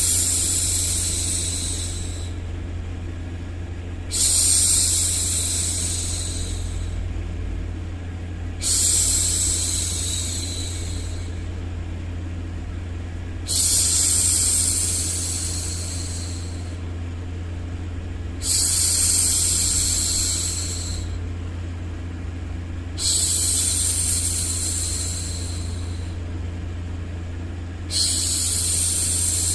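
A woman shushing a baby, a long 'shhh' that fades off, repeated every four to five seconds, over a steady low hum of white noise.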